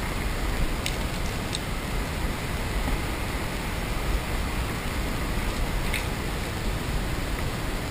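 Steady rushing background noise with no clear pitch, heaviest in the low end, with a few faint light clicks about a second in, a little later, and again near six seconds.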